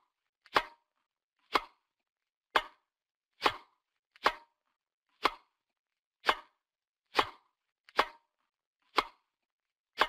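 Cartoon sound effect: a run of about ten sharp single knocks, roughly one a second and slightly uneven, each with a brief ring, separated by silence.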